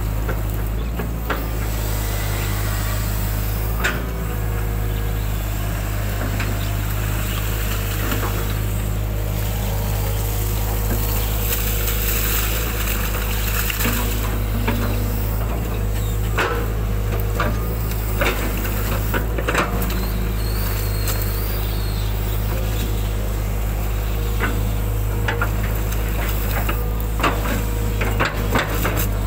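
Hitachi hydraulic excavator's diesel engine running steadily under load, with irregular scrapes and knocks as the bucket presses and drags across wet mud.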